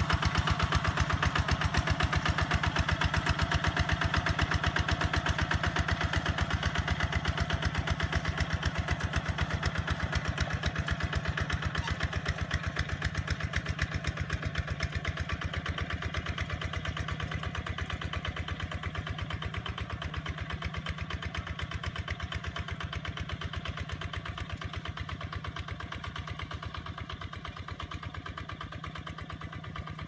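Two-wheel walking tractor's single-cylinder diesel engine running steadily under plough load, with an even rapid beat, growing gradually fainter as it moves away.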